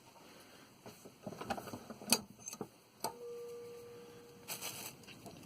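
Bolt cutters working on the relief valve's copper probe with its steel rod: a few metal clicks and knocks, then a sharp snap about three seconds in that leaves the metal ringing with a steady tone for about a second and a half, and a short scrape near the end.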